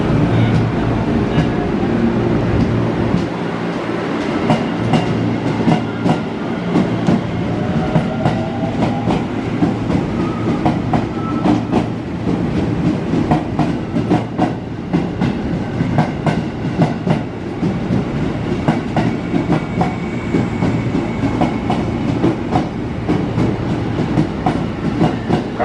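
JR 205-series electric commuter train pulling out along the platform, its cars rolling past with a continuous run of wheel clacks over the rail joints. A faint motor whine rises in pitch about eight seconds in as the train gathers speed.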